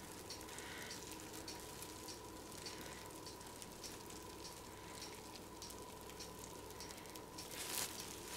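Faint crackling and crinkling of plastic bubble wrap being peeled slowly up off wet acrylic paint on a canvas, with a slightly louder rustle near the end as the sheet comes free.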